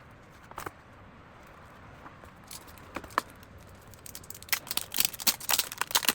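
Packaging being handled during an unboxing: a few scattered sharp clicks, then, from about two thirds of the way in, a rapid run of crackling, crinkling clicks.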